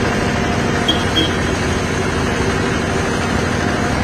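A steady, engine-like rumbling noise with two short high blips about a second in.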